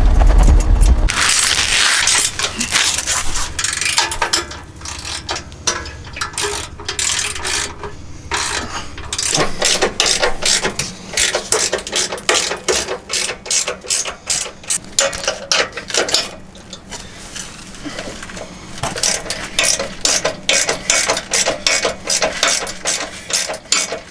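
Hand ratchet wrench clicking in quick runs as the rock slider's mounting bolts are tightened to the frame, with a low thud at the very start.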